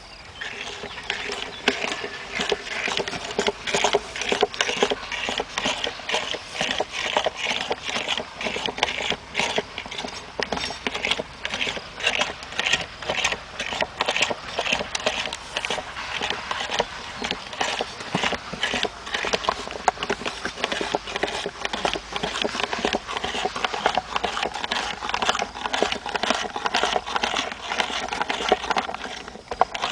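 Electric meat grinder running with a steady motor hum while grinding marshmallows, with dense, irregular crackling and clicking throughout as the mass is forced through.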